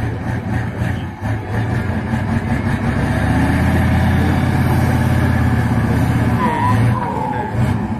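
Tatra trial truck's diesel engine working hard under heavy throttle in deep mud, rising about three seconds in and holding high, then easing off near the end.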